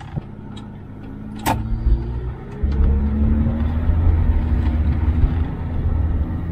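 1975 Jaguar XJ6's straight-six engine heard from inside the cabin as the car pulls away. There is a sharp click about a second and a half in, then the engine note rises and grows louder as the car accelerates.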